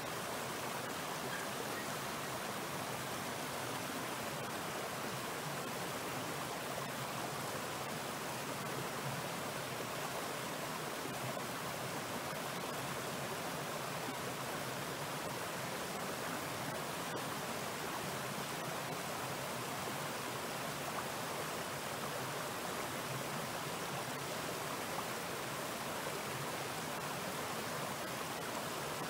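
A mountain stream flowing: a steady, unbroken rush of water.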